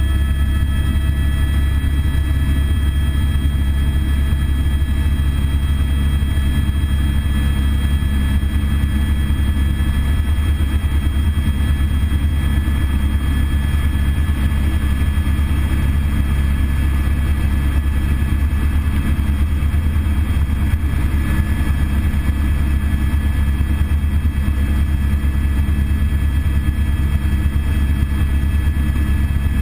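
Eurocopter AS350 B3 single-turbine helicopter in steady forward flight, heard inside the cockpit: a loud, constant low drone of rotor and engine with several thin steady whines above it.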